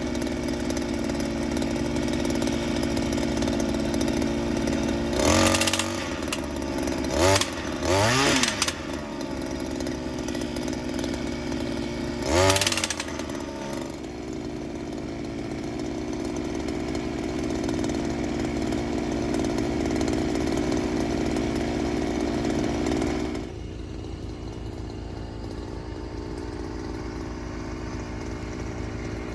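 Small engine of a post pile driver running steadily, revved hard in short bursts about five, seven, eight and twelve seconds in, with its pitch rising and falling on each; the steady running drops lower near the end.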